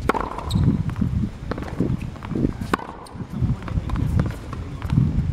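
Tennis rally on a hard court: a sharp racket-on-ball pop at the very start, then a few more pops from ball bounces and hits, over the player's quick footsteps.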